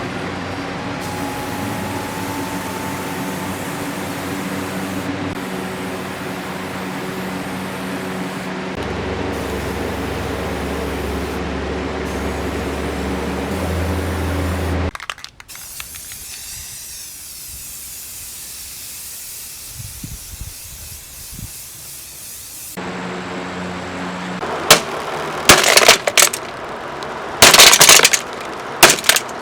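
Lasko box fan running: a steady rush of air over an electric motor hum, its low hum shifting twice. About halfway through it cuts out abruptly and goes quieter, the hum comes back after several seconds, and a series of very loud, sharp cracks follows near the end.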